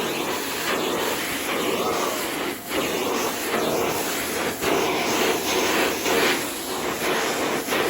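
Von VAVC-16DMR bagless drum vacuum cleaner running with a steady rushing suction noise that dips briefly twice. It is described as super quiet.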